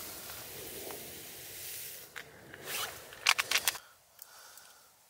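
A steady hiss, then a short run of quick rasping strokes about three seconds in, after which the sound drops away abruptly.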